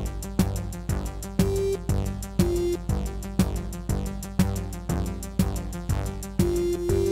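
Electronic dance music from a live set: a steady drum-machine beat with regular kicks and ticking hi-hats, under synth parts with a few short held notes.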